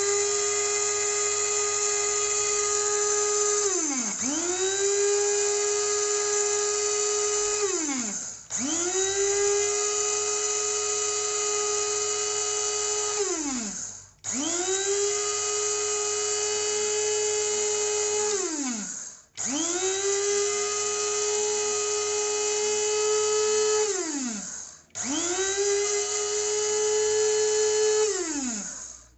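NWOUIIAY 300 W electric blade coffee grinder running in repeated pulses of about four to six seconds: a steady high motor whine that sags in pitch as the button is released and climbs back when it is pressed again, about six times, stopping near the end.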